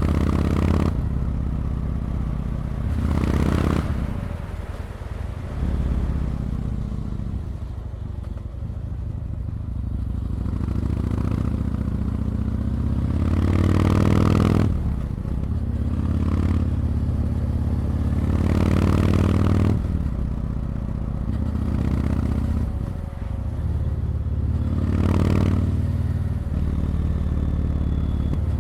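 Yamaha MT-01's big air-cooled V-twin engine running on the move, swelling several times as the throttle opens and dropping back as it eases off, with a rush of wind.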